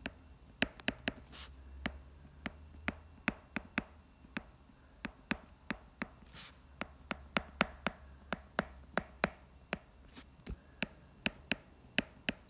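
A stylus tapping on a tablet screen during handwriting: a string of sharp, irregular clicks, about two or three a second.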